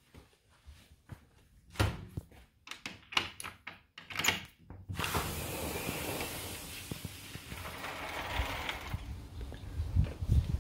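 Sliding glass balcony door being worked open: a quick series of clicks and knocks from the latch and frame, then a steady rush for about four seconds as the door slides and outdoor air comes in, with low thumps near the end.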